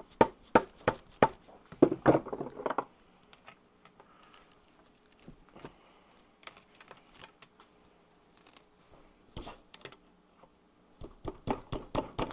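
Sharp clicks and knocks of small steel engine parts, the Ironhead Sportster's valve lifters, being handled and set down on the bench: a quick run of them over the first few seconds, a few faint ones in the middle, and another quick cluster near the end.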